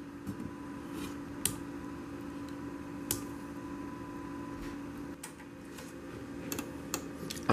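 Rotary mode switch of a Hannover BR9000 CB radio clicking several times as it is turned between AM and LSB, over a steady low hum from the set.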